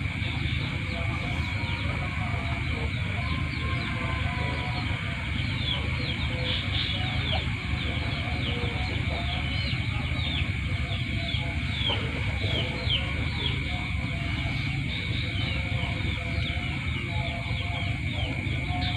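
Night ambience: a steady high insect drone with many short, quick falling chirps over it, and a continuous low rumble underneath.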